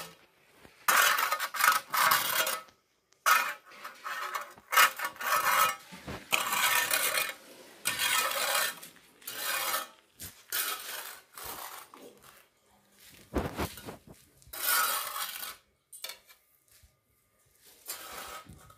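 A small metal scoop scraping gritty sand across a concrete floor in about a dozen short, irregular strokes, with a longer pause near the end.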